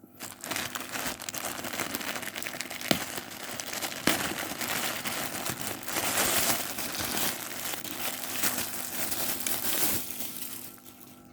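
Packaging crinkling and rustling as it is handled and opened, with two sharp snaps about three and four seconds in; the crinkling dies down near the end.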